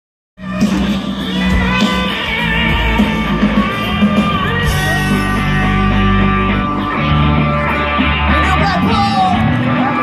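Live rock band playing loudly through a large outdoor PA, with electric guitars, drums, heavy bass and sung lead vocals, heard from within the audience.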